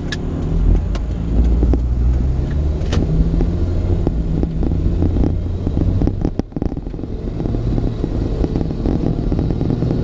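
2006 Toyota Tundra pickup driving at road speed, heard from inside the cab: a steady low engine and road rumble, with a brief dip in level about six and a half seconds in. The truck is running on its newly replaced driveshaft, which cured its U-joint vibration.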